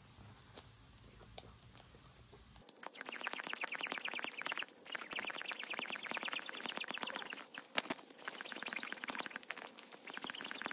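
A small air pump inflating a baby's inflatable swim neck ring through its valve: a rapid, even, squeaky buzz that starts a few seconds in and runs in spells of a second or two with short breaks.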